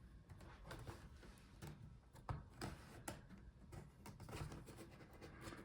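Near silence with a few faint taps and clicks from handling the laptop's bottom case.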